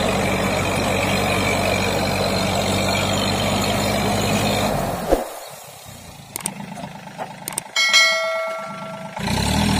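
John Deere tractor engine and the PTO-driven fan of a towed air-blast orchard sprayer running steadily, then cut off suddenly about five seconds in. A few clicks and a bell chime from a subscribe-button sound effect follow, and the tractor and sprayer noise comes back near the end.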